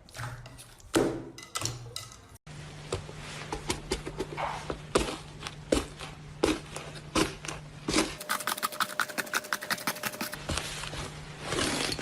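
Slime being squeezed and poked by hand, giving irregular sticky pops and crackles, with a quick run of about ten clicks a second a little past the middle.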